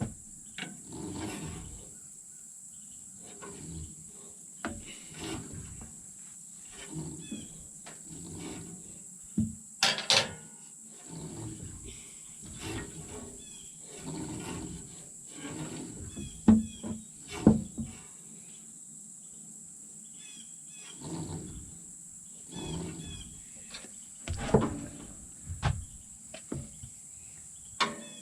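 Irregular metal knocks and clunks from hand work on an HM130 Max bandsaw mill, its band wheel being turned by hand to check the blade's tracking; the loudest knocks come about ten seconds in and in clusters near the middle and end. A steady high insect drone runs under it throughout.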